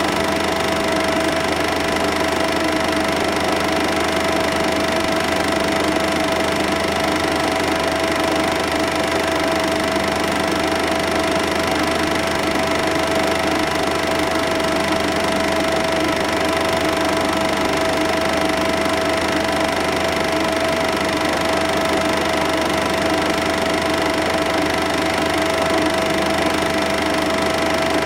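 Cine film projector running: a steady mechanical whir with a constant hum.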